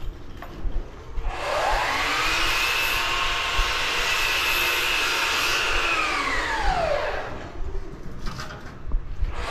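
An electric blower spins up about a second in, runs at a steady whining pitch for about five seconds, then winds down. It starts spinning up again at the very end.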